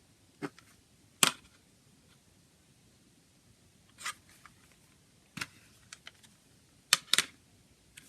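Handling of a CD's plastic packaging: a string of sharp plastic clicks and short crinkling rustles at uneven intervals, the loudest about a second in and two close together near the end.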